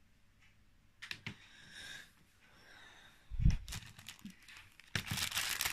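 A dull knock about three and a half seconds in, then crinkling and rustling as crafting materials are handled near the end.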